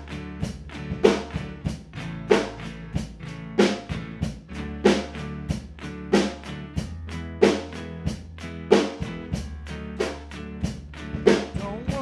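Instrumental band music with no singing: drum kit, bass and guitar, with a strong drum hit about every 1.3 seconds over a steady bass line.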